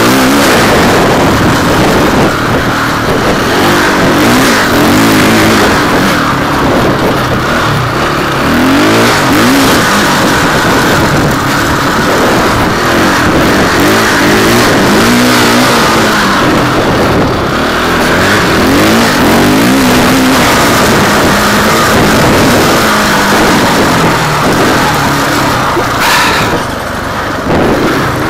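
Enduro dirt bike engine heard from the bike's own on-board camera, revving up and down again and again as the rider works the throttle and gears, over a steady rushing noise. The engine note drops back briefly near the end.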